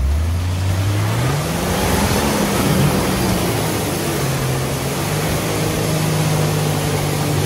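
Jeep Cherokee XJ engine revving hard as it drives into a deep mud hole, pitch climbing over the first two seconds and then held high, over the splash and spray of mud and water thrown up by the tires.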